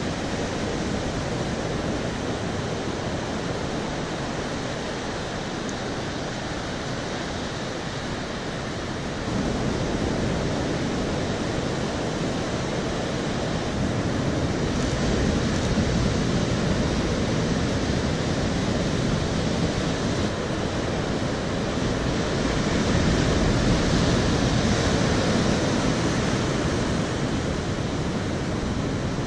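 Ocean surf breaking and washing up a sandy beach: a steady rushing roar that swells louder as bigger waves come in, about a third of the way through and again later on.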